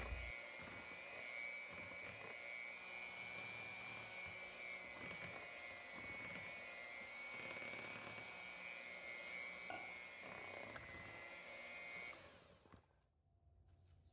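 Electric hand mixer running on low speed, beating banana bread batter with a steady motor whine. It switches off about twelve seconds in.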